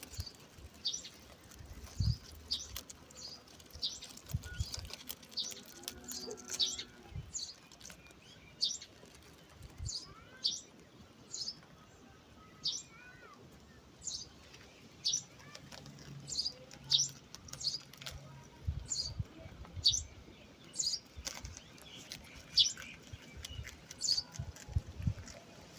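A small bird chirping repeatedly, short sharp high chirps about once a second, over faint rustling with a few soft low thumps.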